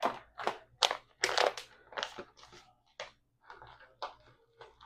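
Plastic pouch of Ben's Original Ready Rice crinkling as it is handled and squeezed while rice is spooned out of it, a run of short irregular crackles.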